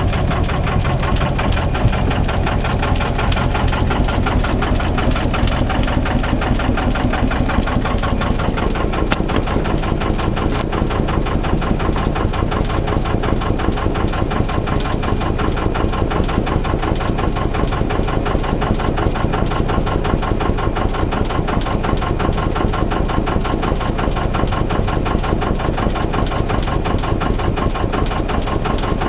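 Albin 2D inboard marine engine running steadily, an even rapid beat of firing strokes.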